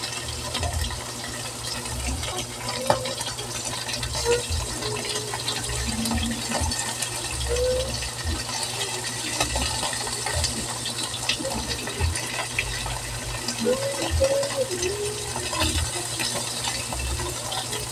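Small whole fish sizzling steadily in hot oil in a steel wok, with light clicks and scrapes of a metal spatula against the pan as the fish are turned.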